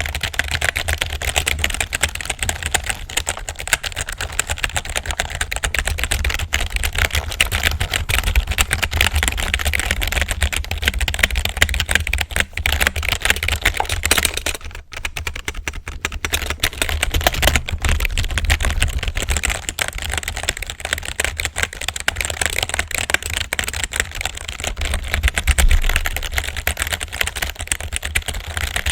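Computer keyboard typed on rapidly, a continuous patter of keystroke clicks with a short pause about halfway, over a low hum.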